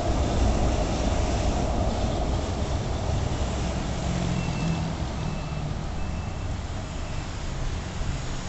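Steady low rumble of city street traffic, with three short high beeps about half a second apart around the middle.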